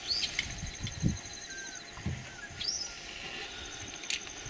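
African wild dogs twittering: two high-pitched, bird-like chirping calls, one at the start and one about two and a half seconds later, with a couple of dull low thumps in between.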